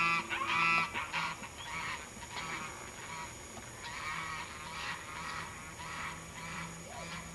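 A flock of geese honking repeatedly, several birds calling over one another. The calls are loudest in the first second, then go on more faintly.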